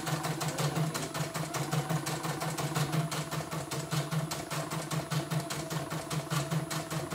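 CNY embroidery machine stitching a design: a rapid, even clatter of the needle over a low pulsing hum. It runs on without stopping, now that two sensors and the thread tension set have been replaced.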